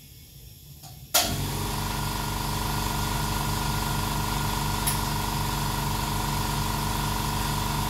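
A digital tyre inflator fills a tyre with compressed air toward its 40 psi set point. The air comes on suddenly about a second in, then a loud, steady hum with a rush of air runs on, with a single click midway.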